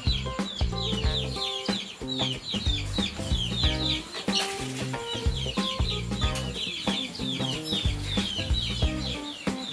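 Background music with steady low notes, over a stream of quick, high, falling chirps from birds, several a second.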